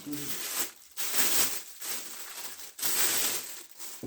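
Packaging material rustling and crinkling in irregular bursts as it is pulled and handled during unboxing.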